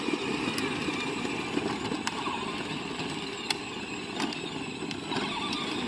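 Two battery-powered John Deere ride-on toy tractors driving on asphalt: a steady gritty rumble of their hard plastic wheels rolling over the pavement, with a few sharp clicks.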